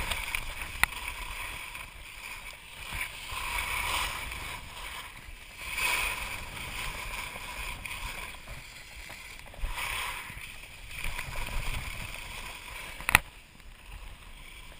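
Skis scraping and hissing over packed snow through a run of turns, the sound swelling with each turn about every two seconds. A single sharp knock comes about thirteen seconds in.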